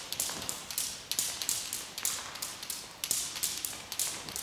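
Two jump ropes turned in a Chinese wheel slapping the floor in a steady rhythm, about two sharp slaps a second, some falling in close pairs.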